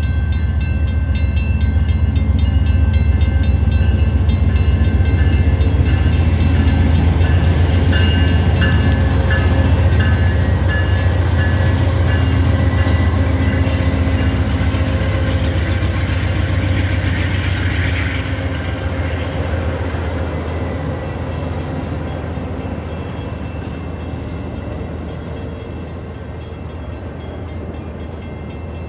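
Amtrak passenger train passing through a grade crossing: the diesel locomotive's engine gives a loud low rumble, with the crossing's warning bell ringing. After the locomotive goes by, the double-deck passenger cars roll past on the rails and the sound slowly fades.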